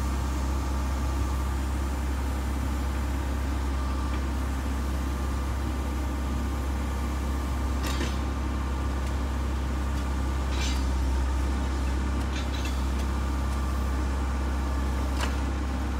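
A John Deere backhoe loader's diesel engine running steadily at idle. A few short scrapes of a shovel in the dirt come over it in the second half.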